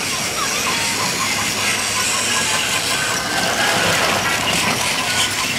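Several battery-powered Plarail toy trains running on plastic track: a steady whir of their small electric motors.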